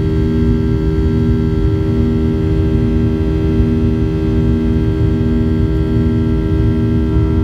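Cabin noise of a Boeing 737-800 climbing after takeoff: its CFM56-7B turbofans and the rushing air give a steady loud rumble under a low droning hum. One note of the hum swells and fades about once a second.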